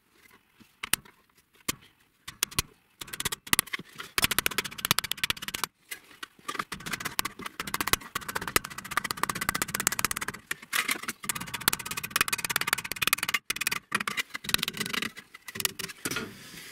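Hammer blows on thin sheet steel while a flange is folded over along its edge: a few separate taps at first, then fast irregular runs of sharp knocks from about three or four seconds in until shortly before the end.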